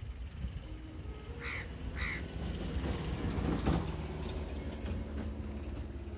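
A crow cawing twice in quick succession, over a steady low background rumble.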